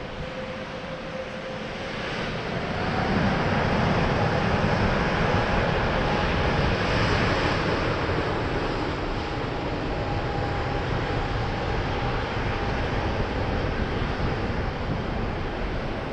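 Jet airliner engines: a loud rushing noise with a thin steady whine. It grows louder and the whine steps up in pitch about three seconds in, then holds.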